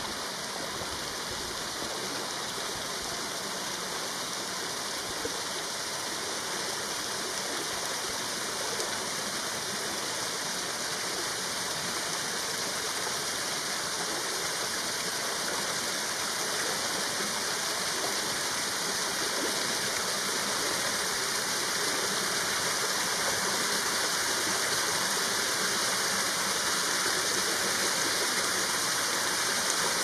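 Small creek waterfall spilling over rock ledges into a pool: a steady rushing, splashing hiss that grows slowly louder.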